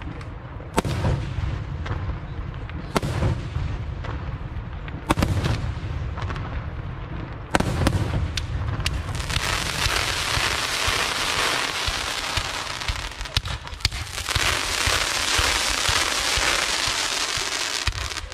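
Fireworks display: single shell bursts going off about every two seconds, each a sharp report with a low rumbling tail, then from about nine seconds in a dense, continuous hiss and crackle of ground-fired comets with sharp reports mixed in.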